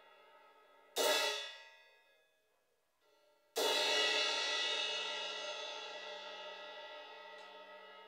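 Sabian AAX Splosion 18-inch crash cymbal struck with a drumstick twice. The first crash, about a second in, is cut short within a second or so. The second, about three and a half seconds in, is left to ring and its wash fades slowly.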